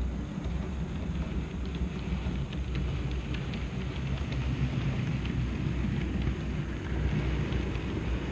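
Train rumbling through the station, a steady deep rumble with scattered light ticking of wheels over the track.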